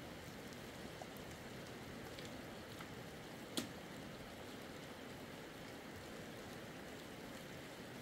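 Light rain falling: a steady soft hiss with scattered faint ticks, and one sharper click a little over three and a half seconds in.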